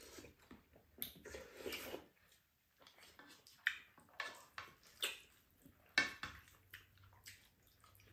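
Quiet eating sounds from two people: scattered lip smacks, sips and chewing, with a few light clicks of wooden spoons against a frying pan and bowls.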